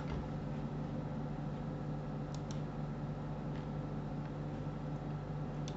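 Steady low electrical hum and hiss of the recording setup, with a few faint computer-mouse clicks about two and a half and three and a half seconds in.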